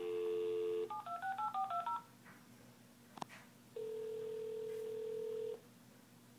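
A telephone heard through its speaker: a two-note dial tone, then a quick run of keypad tones as a number is dialled about a second in. After a click, one steady ring tone of just under two seconds is heard while the call goes through.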